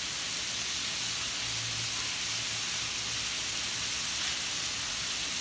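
Meat sizzling steadily as it fries in a large aluminium wok, with a faint low hum underneath.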